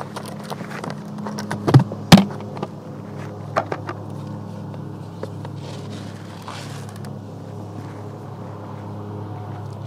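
A steady low mechanical hum throughout, with a few sharp knocks and clacks from a plastic five-gallon bucket and its lid being opened and rummaged through. The loudest knocks come close together about two seconds in.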